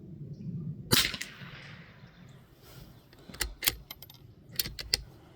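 A single .22 LR rifle shot about a second in, a sharp crack with a short echo, followed by several lighter clicks a few seconds later.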